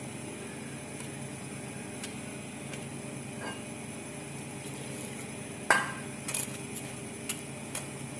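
Kitchen handling noise: one sharp knock a little past the middle, then a few lighter taps and clinks, like a vessel or utensil against a cooking pot, over a steady low hum.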